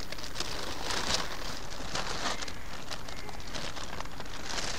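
Dry grass and reed litter crackling and rustling underfoot: a steady patter of small crackles.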